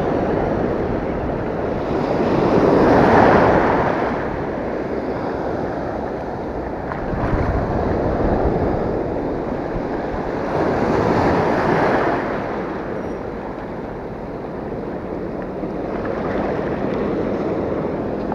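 Sea surf washing over a rocky shore, a steady rush of water that swells four times as waves come in and drain back.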